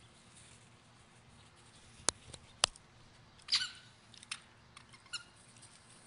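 Puppy play with a toy: two sharp clicks about two seconds in, half a second apart, then a few short high squeaks over the next couple of seconds.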